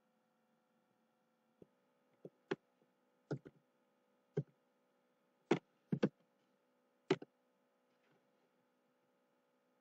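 Computer mouse clicks and keyboard key presses: about eight sharp, separate clicks spread over a few seconds, some in quick pairs, over a faint steady hum.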